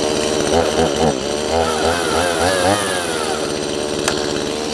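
Stihl MS170 two-stroke chainsaw engine running just after starting. Its speed wavers up and down for the first few seconds, then settles into steadier running.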